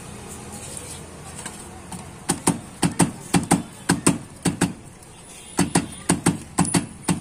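Knife chopping on a steel tray: sharp knocks, about four a second, in two runs with a short pause between them.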